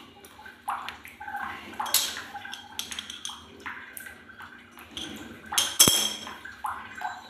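Chrome wall mixer valve parts clinking and scraping against red-handled pliers as they are gripped and turned by hand, in a string of small clicks and knocks. A sharp metallic clink rings out about six seconds in.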